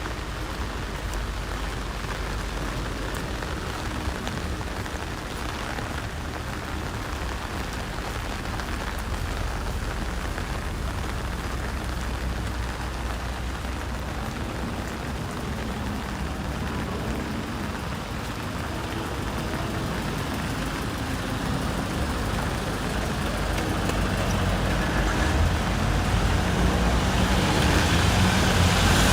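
Steady rain falling, with low road-traffic rumble underneath; over the last several seconds a vehicle approaches and grows louder.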